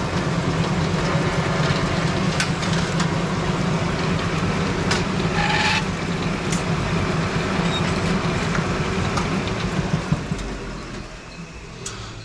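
Brunswick A-type bowling pinsetter running through a cycle: a steady low mechanical hum with scattered clanks and knocks from the deck and linkage, which winds down about ten seconds in.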